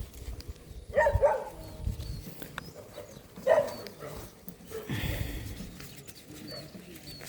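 A dog barking: two short bouts, about a second in and again some two and a half seconds later.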